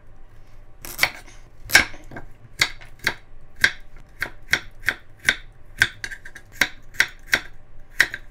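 Chef's knife cutting a carrot on a wooden cutting board: a steady run of sharp knocks, about two or three a second, as the blade goes through the carrot and strikes the board.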